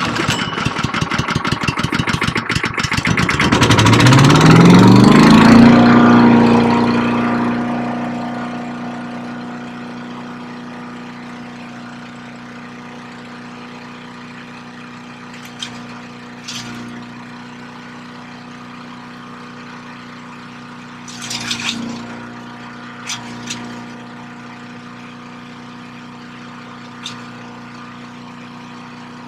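Small engine catching on a restart attempt. It sputters rapidly for a few seconds, rises in pitch and settles into steady running. A few light knocks come through later.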